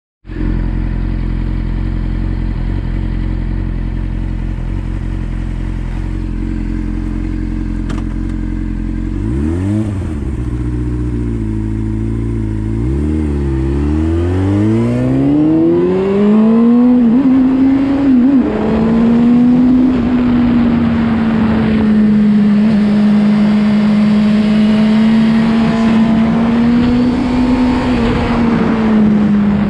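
Motorcycle engine idling steadily, then pulling away about nine seconds in. The revs rise and drop through a few gear changes, then hold steady at cruising speed from about seventeen seconds, with wind noise.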